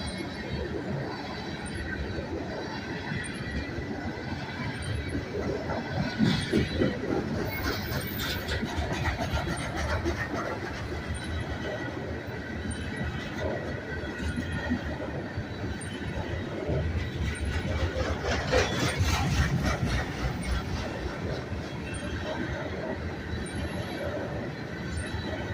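Loaded coal train's freight cars rolling past, a steady rumble of wheels on rail. Twice the sound swells with runs of rapid knocking, the pounding of flat-spotted wheels, and some wheel squeal.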